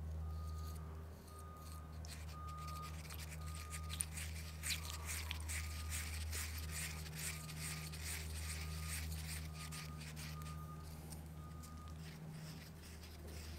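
Bristle brush stirring and scraping acetone-thinned Bondo glazing and spot putty in a small plastic cup: a rapid, scratchy swishing that picks up about two seconds in and eases off near the end. Under it runs a steady low hum and a faint high beep repeating less than a second apart.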